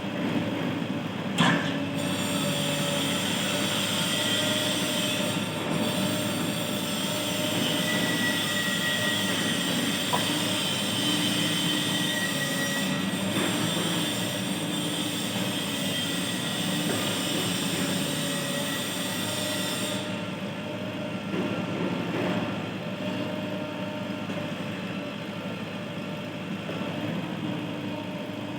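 Heavy diesel engine of a backhoe loader running steadily while it works, with a hiss and a faint high whine over most of the first two-thirds that stop about twenty seconds in.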